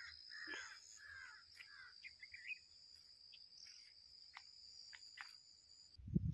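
Crows cawing, about four caws in quick succession in the first second and a half, over a steady high insect drone, with a few scattered sharp ticks. Near the end the drone cuts off and a low rumble starts.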